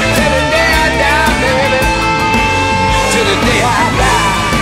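Electric blues band playing without words: a lead line holds a long note, then bends and wavers near the end, over bass, and drums with regular cymbal strokes.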